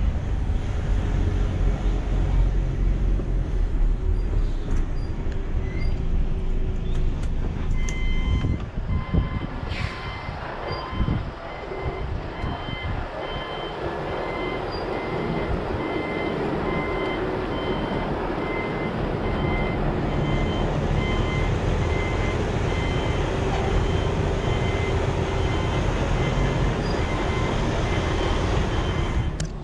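Heavy truck's diesel engine running at low speed while manoeuvring, with a reversing alarm beeping repeatedly from about eight seconds in. A short hiss comes through around ten seconds.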